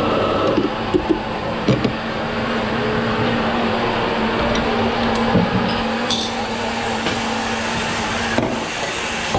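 Espresso bar at work: a steady mechanical hum with a held low tone, broken by clinks and knocks of a portafilter and metal jugs, several about a second in and one near the end. A brief hiss comes about six seconds in.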